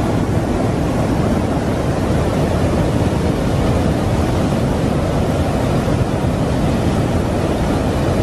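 Muddy floodwater torrent rushing past in a swollen channel: a loud, steady, deep rush of water with no breaks.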